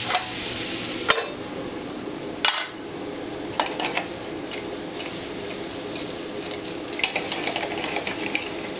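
Onions, red bell pepper and garlic sizzling steadily in a skillet over a gas burner. Sharp metal clinks come about a second in and again near two and a half seconds, and a run of lighter clicks near the end as tongs turn the vegetables in the pan.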